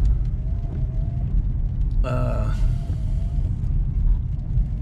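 Steady low rumble of a car's engine and tyres heard from inside the cabin while driving slowly, with a brief voice sound about two seconds in.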